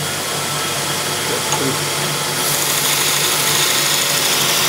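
Square Wheel single-phase belt grinder running with a steady motor hum; about halfway through, a piece of steel is pressed to the abrasive belt and a grinding hiss rises over the hum.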